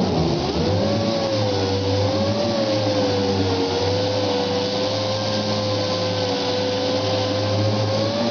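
Astro Pneumatic air orbital sander (mud hog) running: a steady whine over a rough hiss. About a second in its pitch dips sharply and climbs back, then holds with slight wavering, as the speed sags briefly under load and recovers.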